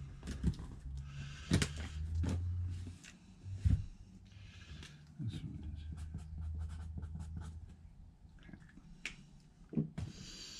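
Cardboard boxes and packing materials being handled on a table: rustling and scraping with a few sharp knocks and clicks, over a low hum that comes and goes.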